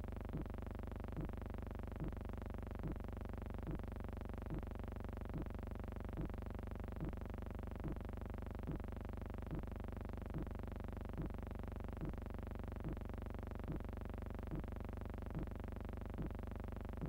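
A steady electronic drone holding several tones over a low hum, with a soft regular pulse a little more than once a second.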